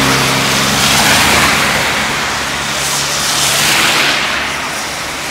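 A car passes on a wet, slushy road, its engine hum fading out in the first second, under a loud, steady rushing hiss of wind and tyre spray in a snowstorm.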